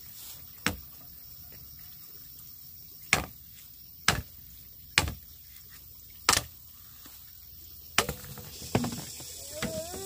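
Machete chopping through a green bamboo pole: six sharp chops about a second or so apart, followed by a few lighter knocks.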